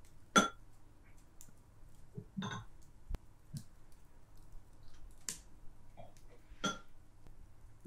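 Cutlery clicking against plates and bowls during a quiet meal: about five separate light clicks, the loudest about half a second in, over a faint low hum.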